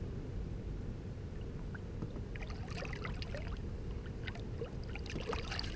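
River water splashing and dripping in a quick scatter of small splashes over a steady low rumble, as a flathead catfish is let go beside a boat with a hand in the water, starting about two seconds in.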